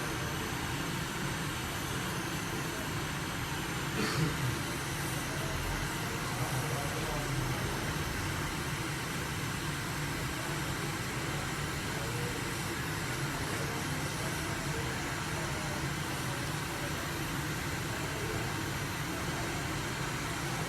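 Steady airflow hiss, typical of a hot-air rework station blowing on the iPhone 7's A10 CPU to melt its solder for removal, with a brief tap about four seconds in.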